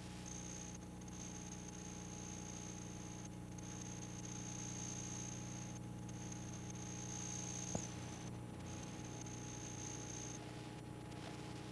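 Faint mains hum and hiss on an old videotape's audio track, with a thin steady high-pitched whine that stops near the end and a single click about eight seconds in.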